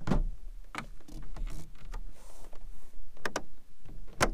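About five sharp clicks and knocks of hard plastic fittings as a Hobie Mirage pedal drive is unlatched and worked out of its well in a kayak hull, two of them in quick succession a little past three seconds in.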